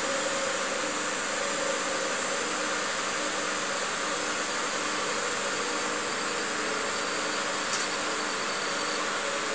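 Sony BVH-3100 one-inch video tape recorder running in playback: a steady whirring hiss of its fans and tape transport, with a faint low tone repeating in short pulses and a small click near the end.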